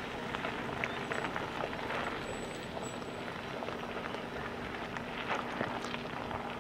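A Ford Bronco's 35-inch Sasquatch-package tires crunching and crackling over loose gravel and rocks as it crawls slowly down the trail, with a steady low engine hum underneath.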